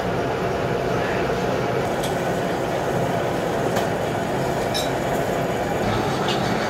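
Gear hobbing machine running steadily, its rotating hob cutting teeth into a helical gear blank, with a few faint clicks.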